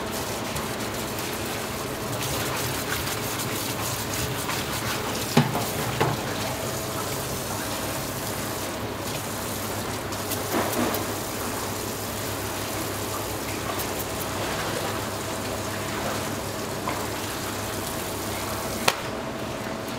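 Tap water running steadily into a stainless-steel sink as a gutted fish is rinsed under it. A few sharp knocks from handling the fish come through, the last near the end, over a steady low hum.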